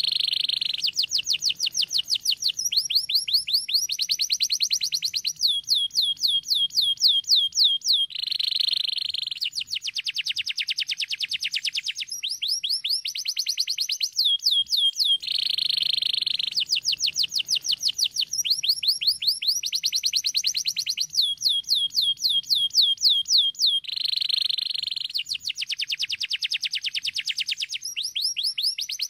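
Domestic canary singing without pause: phrase after phrase of fast trills of repeated notes, with dense buzzing rolls coming back every few seconds.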